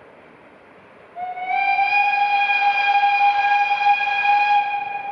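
Steam whistle of the Saxon IV K narrow-gauge steam locomotive 99 1542-2 sounding one long blast. It starts about a second in, rises slightly in pitch at the onset, holds steady for nearly four seconds, then fades near the end.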